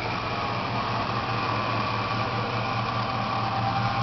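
Pickup truck engine running steadily at low revs, an even low hum with no revving.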